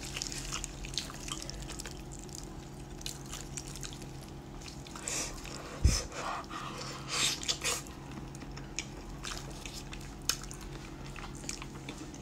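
Sticky, sauce-glazed braised chicken being pulled apart by hand: wet squelches and small sticky clicks, with a single low thump about six seconds in.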